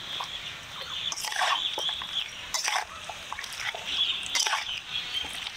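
Perforated metal ladle mixing raw duck meat with wet spice paste and mustard oil in a steel bowl: wet squelching with a few short scrapes and knocks against the bowl.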